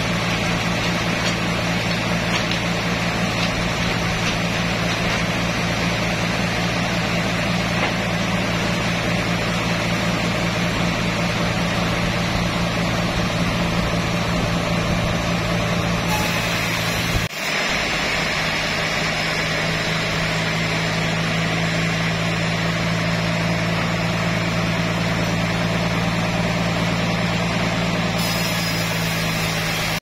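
Sawmill machinery running, the band saw and its drive giving a steady, unchanging hum with a constant hiss over it. It breaks off for an instant just past halfway.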